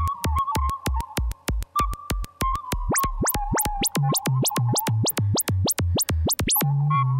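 Electronic music: a fast train of sharp pulses, about five a second, over a wavering high tone. Midway the pulses turn into quick rising sweeps. About six and a half seconds in they stop and low held bass notes take over.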